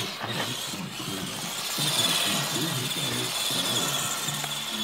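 Small brushless electric motor and drivetrain of a WPL scale RC truck whining as it drives and turns, the pitch rising and falling with the throttle.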